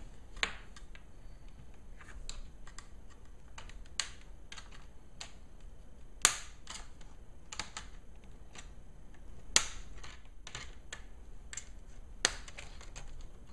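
Plastic clips of a laptop's screen bezel snapping loose as a small flathead screwdriver pries around the edge: a run of sharp clicks, about five of them loud, with fainter ticks between.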